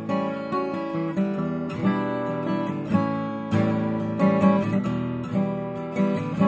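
Bourgeois OMS DB Signature 12-fret acoustic guitar, with an Adirondack spruce top and Madagascar rosewood back and sides, being played: a continuous flow of plucked notes and chords that ring on into one another.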